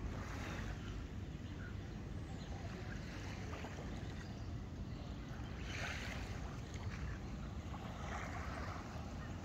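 Steady low wind rumble buffeting the microphone, with a few soft passes of higher hiss from the shoreline air.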